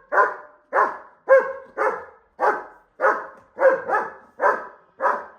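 German shepherd dog barking at a bull, a steady run of about ten loud barks, roughly two a second.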